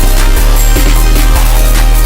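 Loud electronic music track with a heavy, sustained low bass and a steady drum beat.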